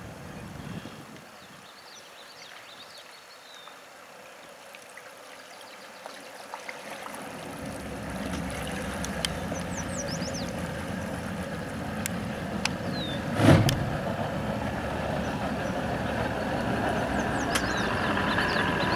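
A boat's 150 hp outboard motor running steadily, coming in about seven seconds in and growing louder. A brief loud thump comes a little past the middle.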